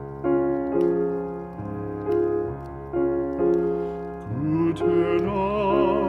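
Slow background music of piano chords, each held and changing every second or so, joined about four seconds in by a higher wavering melody line.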